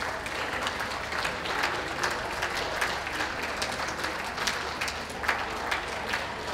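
Audience applauding, a steady dense patter of many hands clapping.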